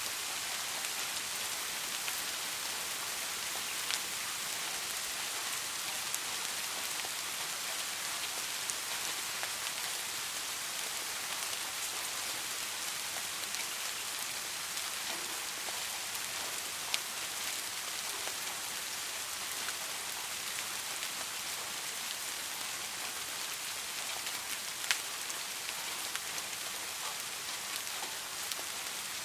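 Steady rain falling, an even hiss of many drops with a few louder single drops striking close by now and then.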